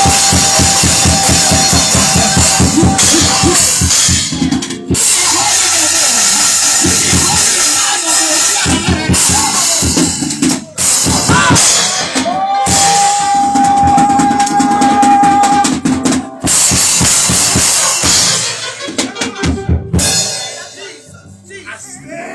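A live band playing loud, fast music: a drum kit drives it with rapid bass-drum and snare hits under cymbal wash, and a long steady note is held twice over the top. The music breaks up and fades near the end.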